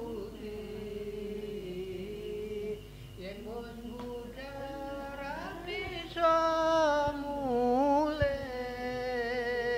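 Slow, drawn-out chanted singing of a Javanese devotional verse about death, in long held notes that slide up and down; it gets louder about six seconds in.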